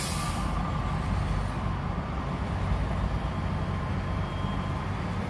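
Steady low rumble of vehicle engines and road traffic heard from inside a car cabin, with a brief hiss in the first half second.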